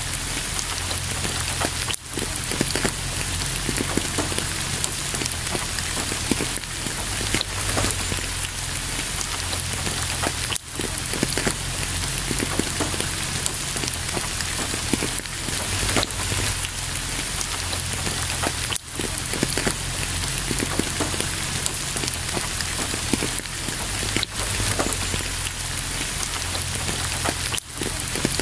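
Steady rainfall, with many close individual drops heard within an even rushing wash. The level briefly dips a few times.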